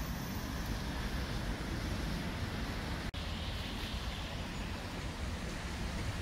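Wind buffeting the microphone over a steady outdoor rumble. It cuts out for an instant about halfway.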